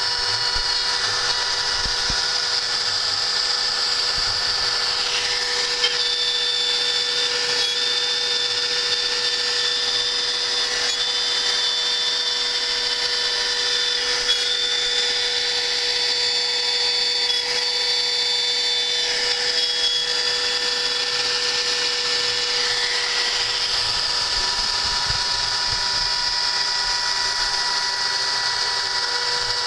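Home-built CNC machine's spindle motor running with a steady whine while milling a mounting plate, its higher tone shifting in pitch for a stretch in the middle as the cut goes on.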